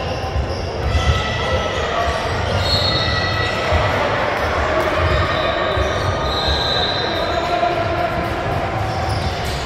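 Basketball bouncing on a hardwood gym floor in a large echoing hall, with a low murmur of voices and two brief high squeaks about three and seven seconds in.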